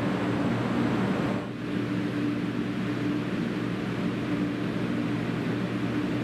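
West Japan Railway 500 series Shinkansen running past a station platform: a loud, steady rush of wheel and air noise with a steady hum under it, dipping briefly about a second and a half in.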